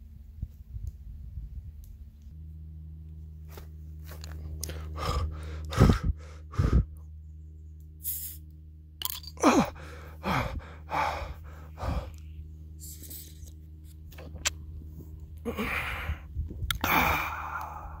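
A man gasping, groaning and breathing hard in short loud bursts, several sliding down in pitch, over a steady low hum.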